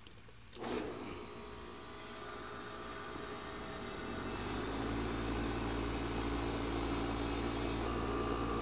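Carrier outdoor condensing unit starting up about a second in, its compressor and fan motor building over a few seconds to a steady running hum, with a higher whine joining near the end. The compressor is pumping the system's refrigerant down into the condenser with the liquid line valve closed.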